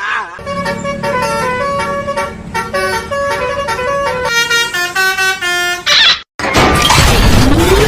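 Basuri-style telolet bus horn playing a quick tune of stepped musical notes over a low steady hum. About six seconds in it cuts off, and after a brief gap a loud, noisy sound with a rising whine takes over.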